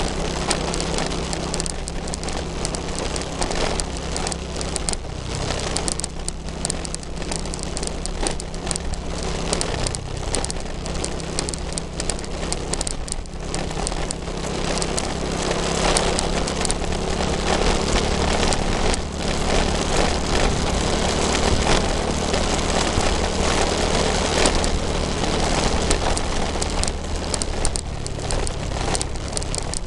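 Vehicle engine running steadily at cruising speed, almost buried under heavy wind buffeting and crackling rush on the microphone.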